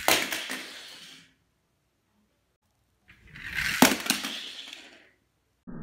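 Small toy car rattling down a ramp and hitting the wooden floor with a sharp clack, then rolling on and fading out. It happens twice: the first clack right at the start, the second about four seconds in.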